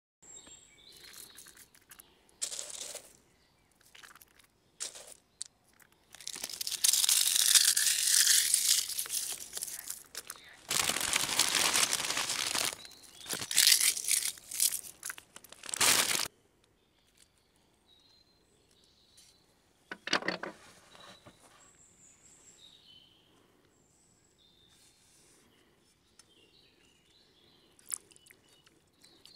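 Plastic snack bag crinkled and shaken as crushed crunchy flakes are poured out of it, in loud rustling spells through the middle; then quiet, with a single knock and scattered small bird chirps.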